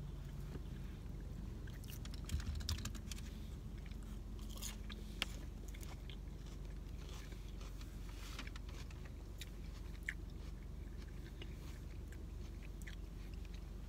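Close-up chewing and crunching of a mouthful of chicken Caesar salad, crisp romaine lettuce crackling with scattered small clicks, over a faint low steady hum.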